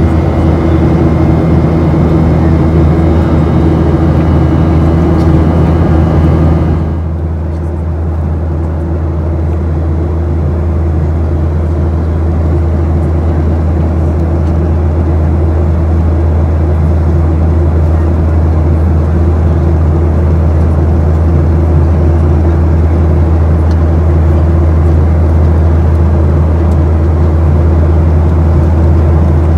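Steady low drone of a Boeing 737-800 airliner's cabin and engines, with a few steady tones above it. About seven seconds in, the higher hiss and tones drop away abruptly, leaving the low drone.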